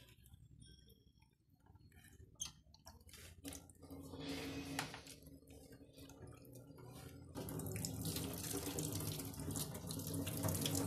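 Hands washing salted, sliced bitter gourd in a bowl of water, with water sloshing as the slices are squeezed and stirred. About two-thirds of the way in, a kitchen tap is turned on and runs steadily into the steel sink.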